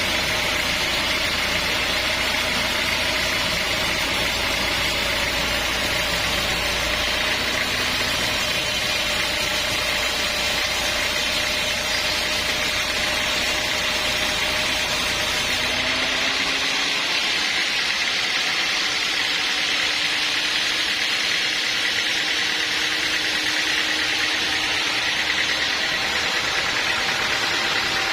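Sawmill machinery running steadily. A little past halfway its hum changes pitch and the deep rumble drops away.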